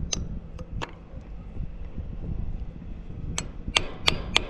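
A hammer striking a steel anchor bolt, driving it through a metal bracket into a drilled hole in a concrete wall. There are sharp metallic strikes: a few in the first second, then after a pause of about two and a half seconds, four quicker, louder blows near the end.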